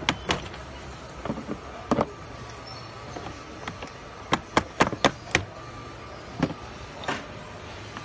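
A screwdriver clicking and knocking against the hard plastic of a BMW X3 door trim panel as the handle area is worked on: sharp, irregular clicks, with a quick run of about five a little past the middle.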